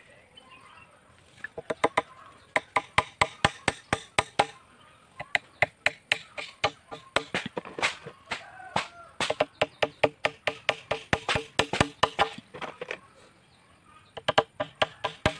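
Claw hammer tapping nails through a wooden slat into a wooden pole: quick runs of sharp, ringing taps, about four or five a second, in several bursts with short pauses between them.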